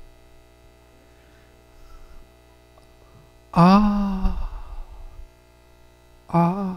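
Steady electrical mains hum, with a person's voice breaking in briefly twice, about three and a half seconds in and again near the end.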